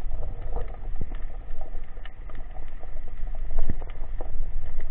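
Underwater ambience picked up by a camera beneath the surface: a steady low rumble of water with scattered clicks and crackles.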